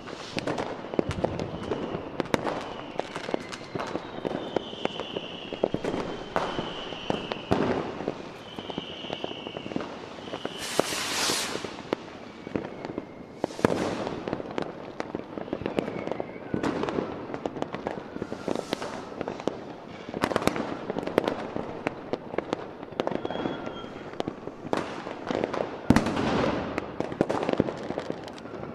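Fireworks display: aerial shells bursting in frequent bangs and crackles. High whistling tones run through the first ten seconds, and a loud hiss comes about eleven seconds in.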